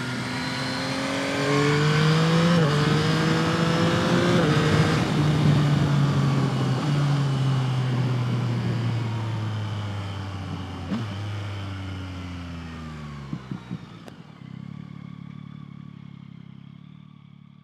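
Yamaha MT-09's 890 cc inline-three engine on its stock exhaust, revving up with gear changes about two and a half and four and a half seconds in. Its pitch then falls steadily as the bike slows, with a few short clicks near the end of the slowdown. It settles into a steady idle that fades out.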